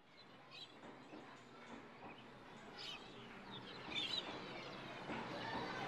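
Birdsong ambience used as a sound effect: many short chirps over a steady noisy outdoor bed, fading in and growing louder.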